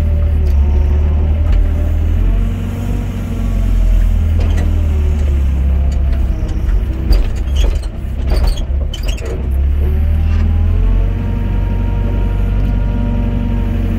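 Hydraulic excavator's diesel engine running under load as the boom swings and the bucket digs, its pitch rising and falling, heard from the cab. Midway through, a cluster of knocks and clatter from the bucket working the ground.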